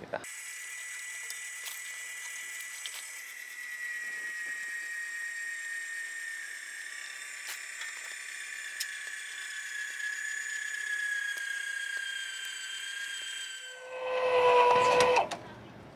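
Electric tongue jack motor on a travel trailer whining steadily as it lifts the trailer tongue, its pitch slowly sinking as it takes up the load and eases tension off the weight-distribution hitch's spring bars. It stops about two seconds before the end, and a louder, lower tone follows for about a second.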